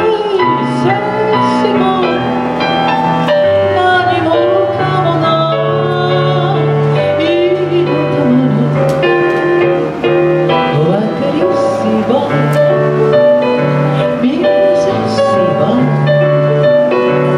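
A woman singing live into a handheld microphone, amplified through a PA loudspeaker, over an instrumental accompaniment with a bass line. The voice glides and bends between held notes.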